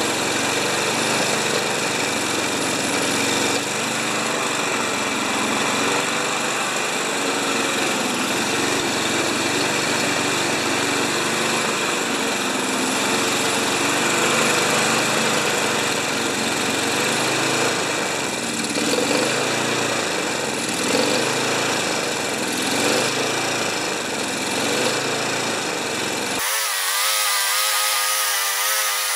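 Tecumseh 6.5 HP VLV single-cylinder four-stroke lawn mower engine running steadily, its pitch wavering a little. It is running on a homemade governor rod whose length was a first guess. The sound changes abruptly near the end.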